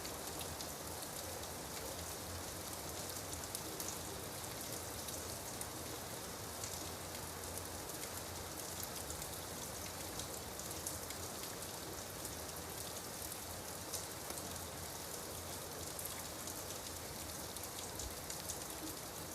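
Steady rain falling, a constant hiss with the fine patter of many individual drops.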